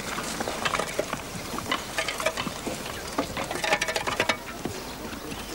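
Stone blocks being handled and hoisted with ropes: irregular clicks, knocks and scraping of stone on stone, with a denser rattle of clatter a little before four seconds in.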